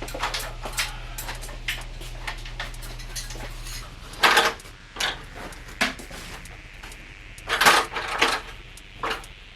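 Hard objects clattering and knocking as they are handled, with two louder clanks that ring briefly. A steady low hum stops about four seconds in.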